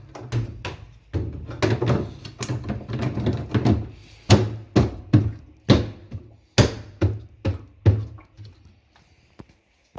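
A series of sharp plastic knocks and thuds, about two to three a second, from parts of a top-loading washing machine being handled and fitted back into place; they thin out and stop near the end.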